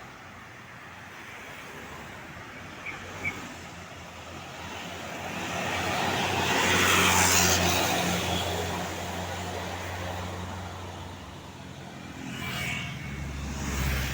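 A tour bus driving past: a steady low diesel engine note with tyre and road noise that swells to a peak about seven seconds in, then fades. A second, smaller swell near the end as another vehicle comes by. No telolet horn is sounding.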